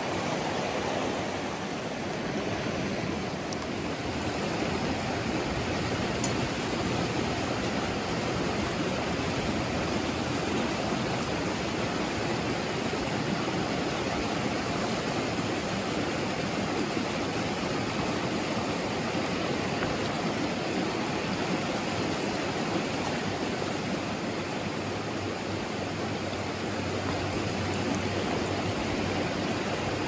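Rocky stream running over stones in small rapids: a steady, even rush of water.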